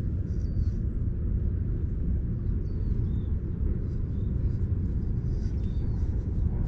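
Outdoor ambience: a steady low rumble, with a small bird giving short high chirps several times.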